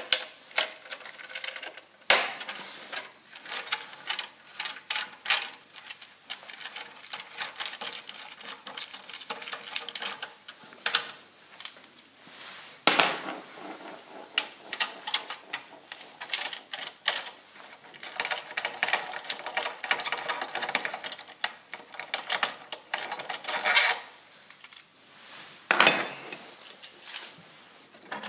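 Socket ratchet clicking in repeated runs while the nuts holding a plastic engine cover are undone, with a few louder knocks of tool and plastic cover.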